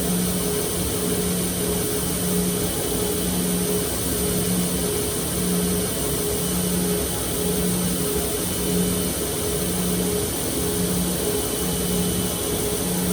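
A motorized grinder running steadily during knife thinning and regrinding, its hum swelling and fading about every two-thirds of a second.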